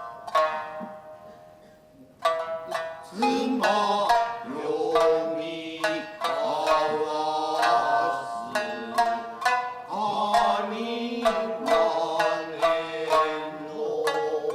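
Tokiwazu music: shamisen plucked in separate ringing notes, thinning to a fading pause about a second in, then a chanting voice with long wavering notes joins the shamisen about three seconds in and carries on over its plucks.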